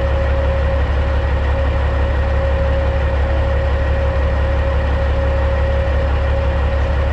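Caterpillar C15 diesel engine of a Peterbilt 379 semi truck running steadily, a deep even drone with no change in speed.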